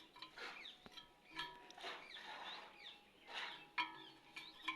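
Birds chirping and calling, faint and repeated, with short rising and falling chirps throughout and a few louder calls.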